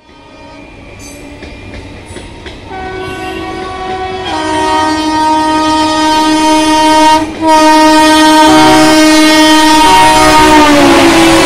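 A WAP-7 electric locomotive's horn sounds a long, steady blast of several notes at once, growing louder as the train approaches, with a short break about seven seconds in. Near the end the pitch drops as the locomotive passes. Underneath, the rumble of the train on the track grows.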